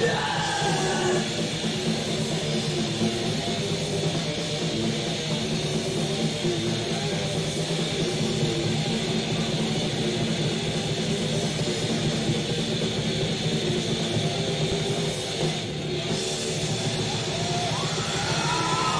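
Thrash metal band playing live: dense distorted electric guitars with bass and drums, steady and loud, with a brief dip in level about three-quarters of the way through.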